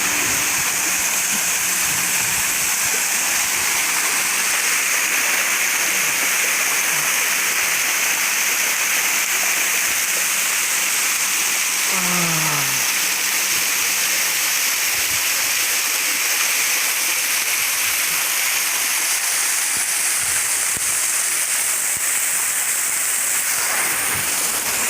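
Waterfall rushing: a steady, loud noise of falling water that does not change.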